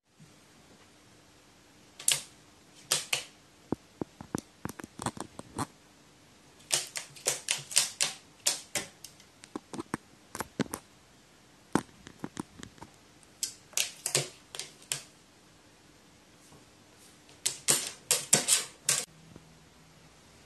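Sharp taps and clicks on a hard surface, in irregular clusters of several a second with quiet gaps between.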